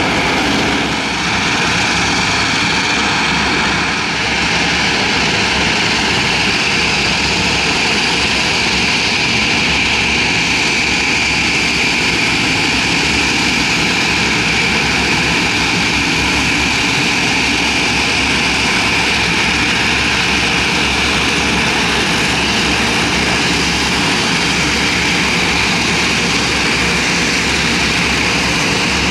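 Turboprop engines running steadily at taxi power: the engines of CL-215T water bombers and a taxiing Pilatus PC-12, giving a steady high whine over a propeller drone.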